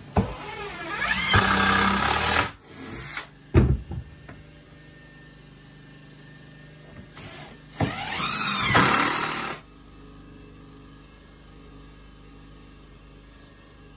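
DeWalt cordless drill driving screws into 2x4 framing in two runs of about two seconds each, its motor pitch rising and then dropping as each screw goes in. A sharp knock comes between the two runs.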